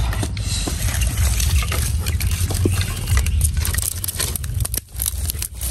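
Dry sticks clicking, knocking and snapping as they are laid by hand over a small fire pit, over a steady low rumble.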